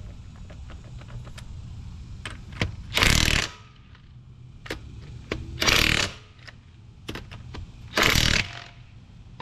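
DeWalt 20V XR cordless impact wrench hammering on a car wheel's lug nuts, tightening them in three short bursts of about half a second each, a couple of seconds apart. Light clicks between the bursts as the socket is moved from nut to nut.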